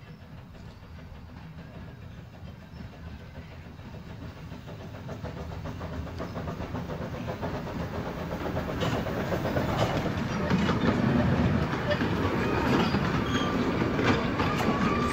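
Two-foot gauge steam train approaching, its running noise and rail clatter growing steadily louder as it draws near.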